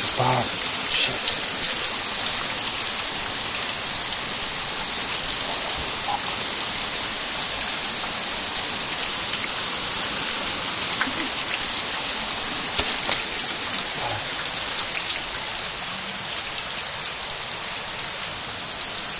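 Torrential rain pelting onto flooded paving and brick steps: a dense, steady hiss of countless drops striking standing water and hard surfaces.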